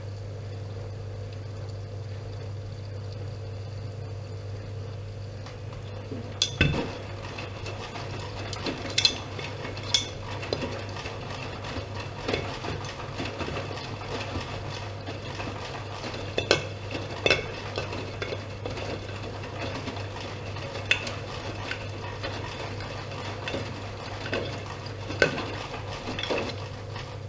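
Privileg Dynamic 7420 washing machine running with a steady low hum; from about six seconds in, irregular sharp clinks and knocks come as the drum turns the laundry.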